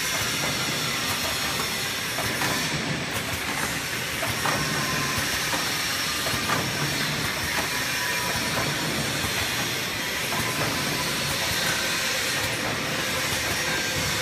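Semi-automatic box packing (cartoning) machine running: a steady mechanical clatter and hiss, with light clicks repeating every couple of seconds.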